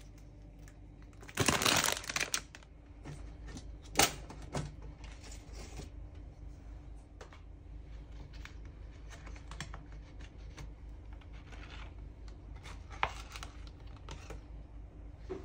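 Crinkling of a paper bag of coconut chips, loudest for about a second starting a little over a second in, followed by scattered light taps, clicks and rustles of hands handling the cake and its lining, with a sharp click about four seconds in and another near the end.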